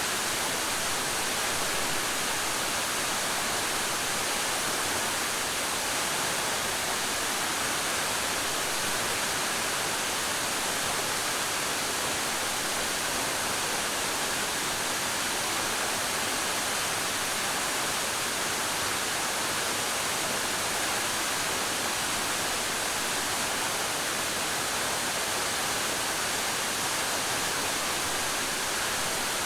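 Waterfall pouring in a steady, unbroken rush of falling water.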